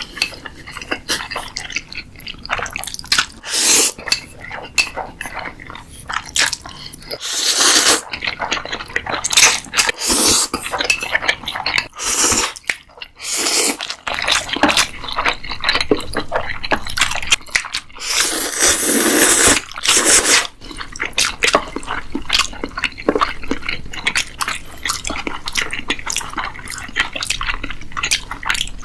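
Close-miked eating sounds: chewing and crunching with many sharp clicks of cutlery and dishes, and two longer, noisier stretches about a quarter and two thirds of the way through.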